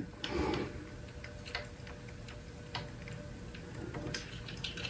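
Scattered faint, irregular clicks of a nozzle being screwed by hand into a 3D printer's hot end, over the steady faint hum of the printer's hot-end fan.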